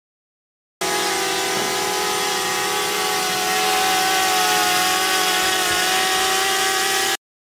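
DJI Mavic Mini drone's motors and propellers whirring steadily in flight, a whine of several held tones over a rushing hiss, rising slightly in level midway. It cuts in about a second in and cuts off sharply near the end.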